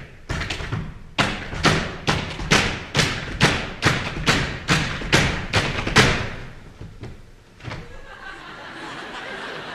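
Tap dancers' work boots stamping in unison on a wooden stage platform: a steady beat of heavy, ringing stomps, about two a second, stopping about six seconds in. After one last stomp, a steady wash of noise follows.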